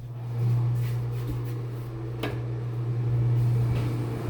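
Bathroom exhaust fan running with a steady low hum, just after being switched on. Two faint clicks sound over it.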